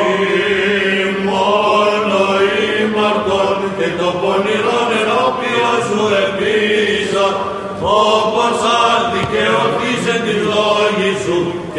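Byzantine chant (psaltiki): a drawn-out, melismatic vocal line sung over a steady held drone, the ison.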